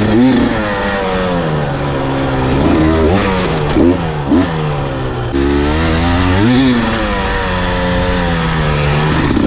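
Engine revving up and down repeatedly, with several quick throttle blips in pitch.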